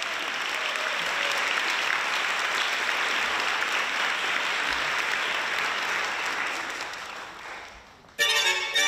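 Audience applauding steadily, then dying away. About a second before the end, music with violin starts suddenly.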